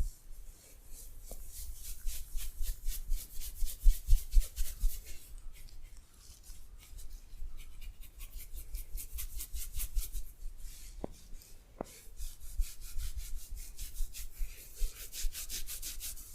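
Hands rubbing back and forth in a massage, a fast rhythmic rustling of several strokes a second, in three runs with short pauses between, and a few soft low thumps along the way.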